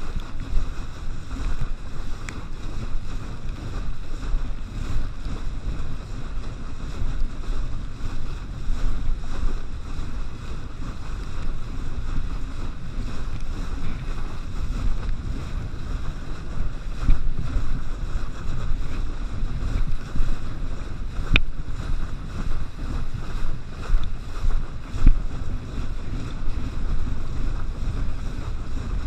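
Gusty wind buffeting the microphone over rushing, churning wake water as a kneeboard is towed at speed behind a boat.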